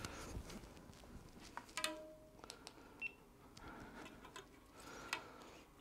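Faint handling noises of a rubber-strapped bike speed sensor being worked around a bicycle rear hub among the spokes: scattered small clicks and rustles, with one short squeak about two seconds in.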